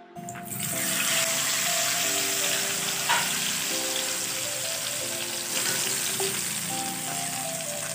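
Hot tempering oil (tadka) with dried red chillies and green chillies hitting the surface of kadhi: a steady sizzle that starts about a third of a second in.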